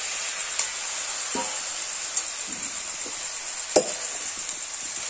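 Fresh leafy greens sizzling in hot oil in a wok, a steady hiss, with a few sharp clinks of metal against the pan, the loudest about two-thirds of the way through.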